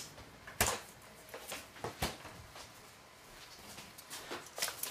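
A few light knocks and clatters of things being handled in a kitchen, spaced irregularly; the sharpest come about half a second in and about two seconds in.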